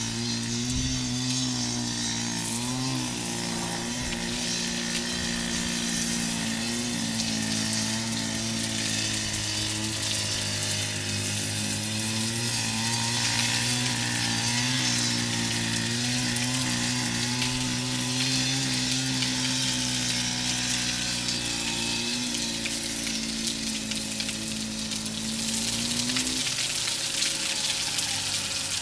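Soft-wash spraying onto a tile roof: a steady hiss of spray and running water over the hum of the sprayer's pump. The pump hum stops about 26 seconds in while the hissing goes on.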